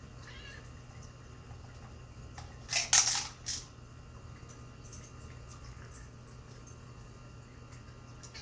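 Dry cat food rattling and spilling as a cat turns the plastic cylinders of a puzzle feeder: a short clatter in three quick pulses about three seconds in, over a low steady hum.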